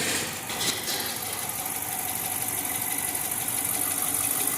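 Chrysler 300C's Hemi V8 idling with a ticking sound (tagaktak) and a misfire. The mechanic puts the tick down to a worn cam follower (lifter) on the right-hand bank.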